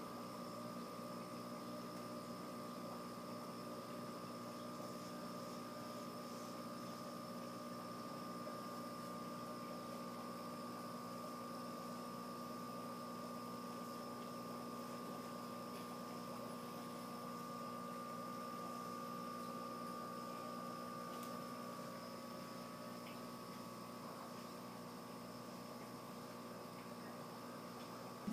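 A steady indoor machine hum with several fixed tones over a light hiss, unchanging throughout.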